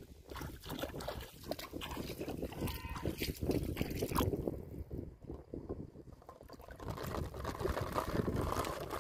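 Shallow river water splashing and sloshing around floating plastic-bottle hook traps, with irregular splashes throughout that get busier near the end.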